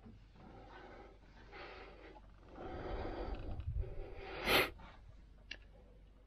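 Hands working deep in a bundle of hydraulic hoses and fittings: rubbing and scraping of hoses and metal parts, growing louder in the middle, with one sharp metallic clank about four and a half seconds in and a small tick near the end.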